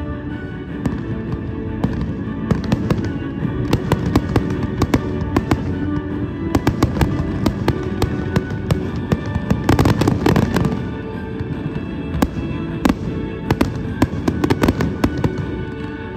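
Fireworks display: a dense run of bangs and crackles, busiest about ten seconds in, with music playing underneath.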